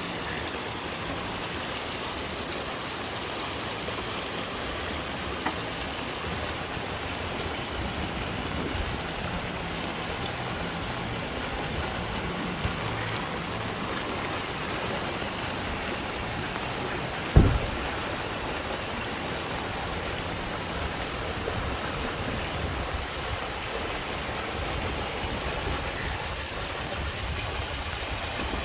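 Heavy rain falling steadily, an even hiss. About two-thirds of the way through comes a single dull thump.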